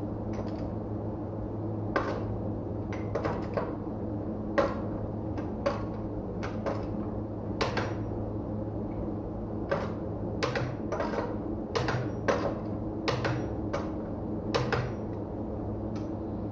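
Irregular sharp clicks and clanks of tools and metal parts being handled in a tyre workshop, about twenty over the stretch, over a steady machine hum.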